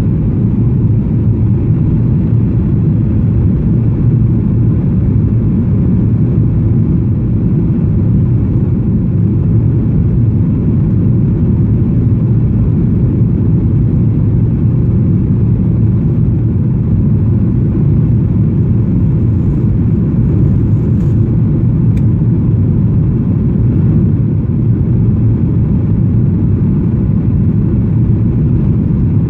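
Steady low cabin noise of an airliner descending on approach with flaps extended: engine and airflow noise heard from a window seat over the wing. A brief faint click late on.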